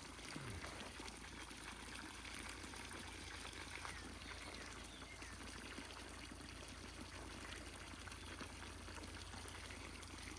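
Water trickling and flowing, faint and steady.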